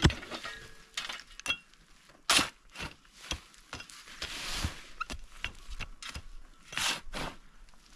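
Irregular knocks and clinks with a few short scraping noises, as of objects being handled or worked.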